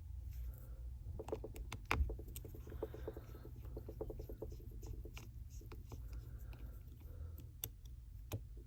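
Small repair tools clicking and scraping against a smartphone's internal parts during disassembly, with a sharper click about two seconds in and a quick run of small clicks soon after. A steady low hum runs underneath.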